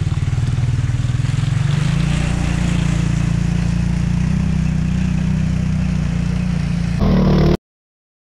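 ATV engine running under light throttle, its pitch rising about two seconds in as the quad wades into a stream, with water splashing around the wheels. Near the end a short, different engine sound comes in, then the sound cuts off abruptly.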